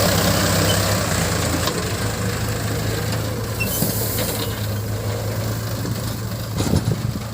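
Heavy diesel engine running at idle with a steady low hum that eases off about a second in.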